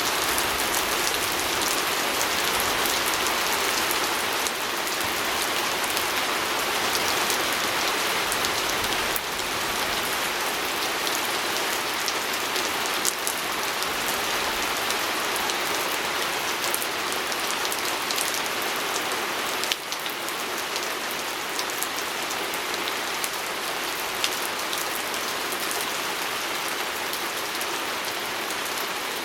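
Steady rain falling on a window, with scattered sharper ticks of single drops hitting the glass.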